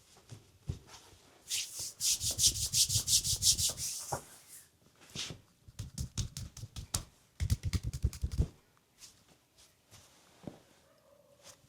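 Hands rubbing briskly on skin during a leg and calf massage, in quick strokes about eight a second. Next come a few separate taps and a fast run of low taps near the end.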